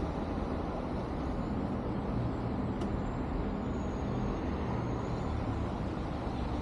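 Steady low rumble of city traffic, with a faint hum of engines under it.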